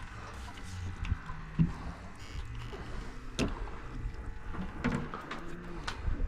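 Fishing-boat deck sounds: a steady low rumble of water and wind with scattered clicks and knocks from handling fish and tackle, one sharp knock about three and a half seconds in.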